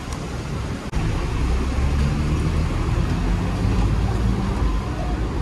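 Hong Kong double-decker electric tram running along its tracks, a steady low rumble and hum heard from on board. The sound briefly cuts out about a second in.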